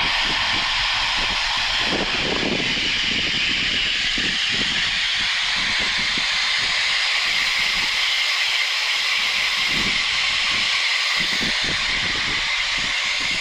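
Pressurised irrigation water hissing out of a sprinkler wheel line as it is charged, a loud, steady hiss with irregular low rumbles underneath.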